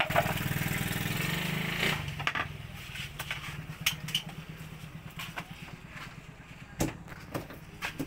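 A small engine runs with a steady low throb and fades out about two seconds in. A sharp knock comes near the end.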